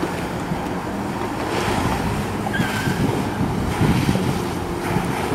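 Jet ski engine running steadily, pumping water up a hose to a water-jet board whose twin jets blast spray onto the surface: a steady rushing hiss of spray over a low engine hum, with wind on the microphone.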